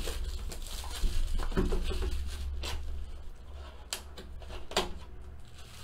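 Hands opening a sealed Topps Archives Signature Series cardboard card box: rustling and scraping of the packaging with a few sharp clicks and snaps as the box and its flap are worked open.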